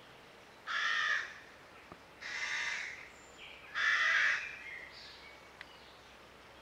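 A bird calling three times, each call about half a second long and spaced a little over a second apart, with fainter calls trailing off after the third.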